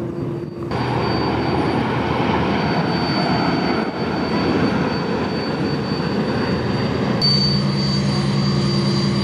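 Steady, engine-like drone mixed with rushing noise, with a faint high whine throughout; the sound changes abruptly twice, and after the second change a low hum comes in.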